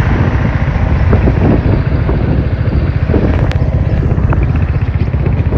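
Wind buffeting the microphone over the running noise of a moving vehicle, a loud, fluttering low rumble, with a short click about three and a half seconds in.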